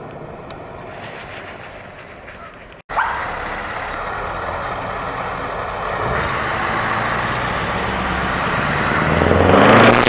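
Truck engine with an open, straight-piped exhaust: a fading engine note, an abrupt cut about three seconds in, then the engine running and revving up, rising to a loud peak near the end.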